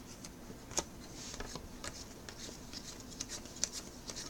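Faint rustling and scattered light clicks of trading cards being handled and slid through by hand, with one sharper click about a second in.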